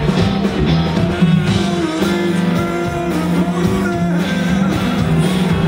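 A live rock band playing, with electric guitar prominent over bass and drums.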